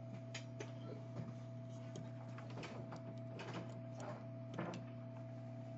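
Scattered light clicks and taps of small tools and parts being handled at a workbench, over a steady electrical hum with a faint steady tone.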